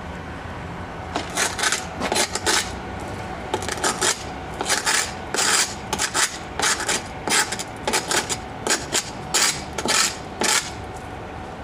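Hand scraper scraping barnacles off a sailboat's fiberglass hull: a string of short scraping strokes, about two a second, starting about a second in and stopping shortly before the end.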